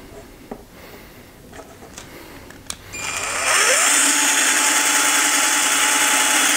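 A few light handling clicks, then about three seconds in a cordless drill spins up with a rising whine. It runs steadily as a 5 mm bit cuts through the Dell Inspiron desktop's sheet-metal case, a loud harsh grinding over the motor's whine.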